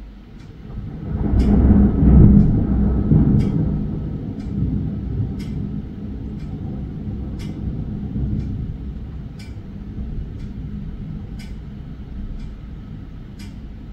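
Thunder rumbling: a low roll that builds about a second in, peaks around two seconds, then slowly dies away, over steady rain. Sharp ticks sound about once a second throughout.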